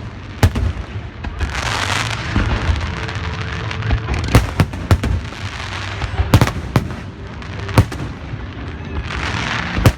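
Fireworks and beehive bottle rockets going off at close range: two long stretches of rushing hiss and several sharp bangs scattered through, some in quick pairs.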